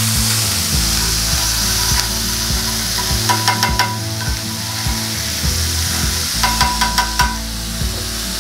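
Butter sizzling on a very hot flat griddle plate, with two short runs of quick clicks about three and seven seconds in.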